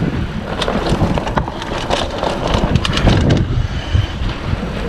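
Mountain bike riding over a dirt trail: steady tyre rumble and wind on the microphone, with a run of clicks and rattles from the bike in the middle.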